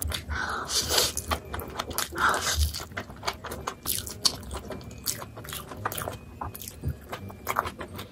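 Close-miked eating of a big mouthful of fried noodles: chewing and slurping, with many quick wet mouth clicks and two longer slurps about one and two and a half seconds in.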